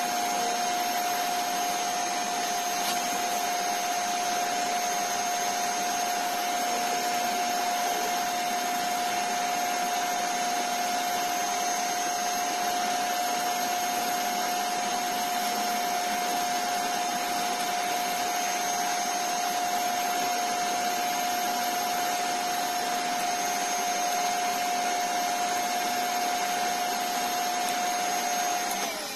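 Small wood lathe running at steady speed, a steady whine over a hiss, while sandpaper is held against the spinning stabilized-wood handle. Right at the end the motor is switched off and its whine starts to fall as it spins down.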